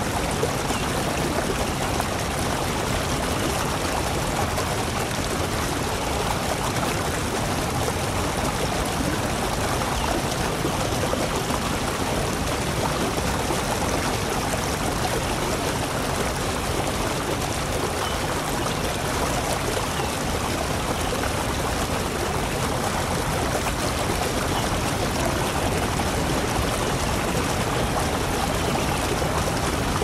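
Running water with a steady, even rush that does not change.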